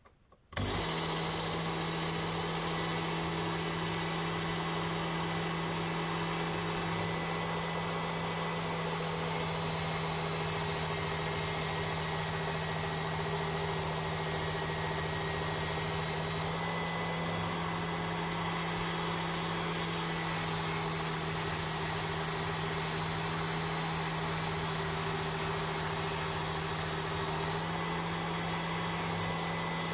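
Work Sharp Ken Onion belt sharpener with its blade grinding attachment switched on about half a second in, its motor and abrasive belt then running steadily while sharpening an axe, with small shifts in pitch as the load changes.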